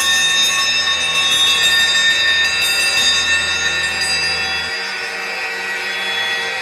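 Loud, sustained bell-like ringing tones, several high pitches sounding together, over a low hum that cuts off suddenly about three-quarters of the way through.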